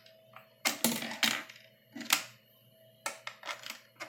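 A one-peso coin being handled and fed into a piso wifi vending machine's coin slot: a run of short clinks and rattles.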